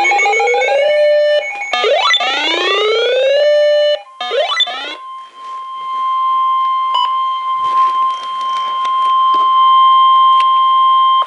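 Three rising electronic pitch sweeps, then the NOAA Weather Radio 1050 Hz warning alarm tone: a loud, steady single-pitch tone held for about seven seconds that cuts off at the end. The tone signals that a warning broadcast is about to follow.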